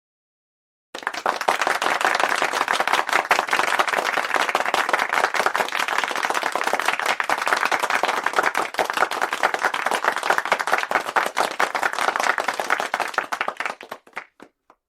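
Audience applauding: many hands clapping in a dense, steady patter that starts suddenly about a second in and dies away near the end with a few last claps.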